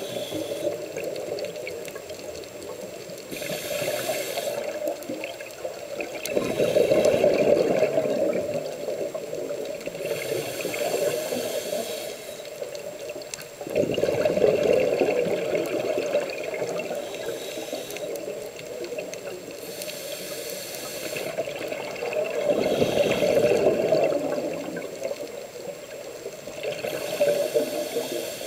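Scuba diver breathing through a regulator underwater: a short hiss on each inhale, then a longer, louder burst of exhaled bubbles, repeating about every seven to eight seconds.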